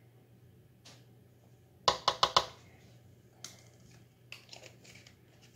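A small dye measuring spoon tapped sharply four times in quick succession, knocking powdered acid dye out onto the fiber, followed by a few lighter clicks and taps.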